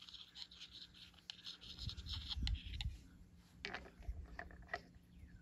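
Faint clicks and light scrapes of small metal parts handled by hand, as a plug with its O-ring and Teflon shield is fitted into a port of a John Deere hydraulic pump housing. A few dull bumps come near the middle.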